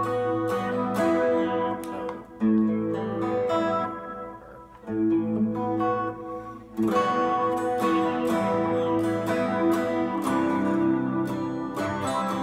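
Electric guitar playing chords that are struck and left to ring, with a fresh chord about two and a half, five and seven seconds in, then quicker picked notes over ringing chords.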